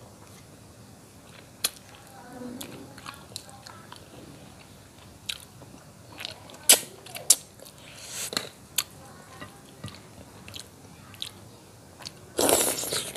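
Close-miked mouth sounds of a man eating catfish-head curry and rice with his hands: chewing, lip smacks and sharp wet clicks scattered through. A longer, louder rushing burst comes near the end.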